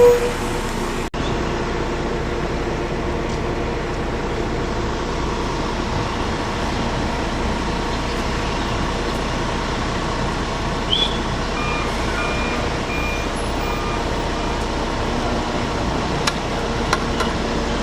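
Heavy road-work trucks running steadily during slurry sealing of the street, with a few short beeps from a reversing alarm past the middle.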